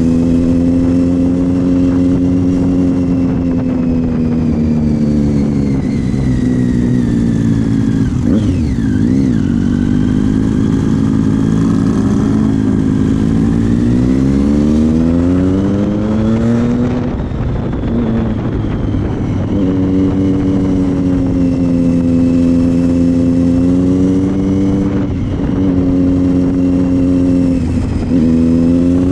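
Triumph Street Triple's three-cylinder engine running through a Leo Vince GP exhaust, heard from the bike while riding. It pulls at a steady pitch, falls away about a quarter of the way in, climbs again midway, then holds steady, with a brief dip near the end.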